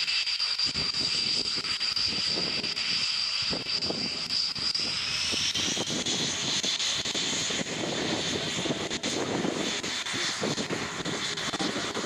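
Panavia Tornado's twin RB199 turbofan engines running as the jet taxis: a steady high whine that rises in pitch about five seconds in, with a deeper rumble growing under it after that.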